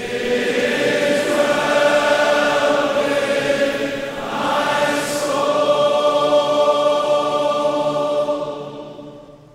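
Closing music of long held chords, fading out near the end.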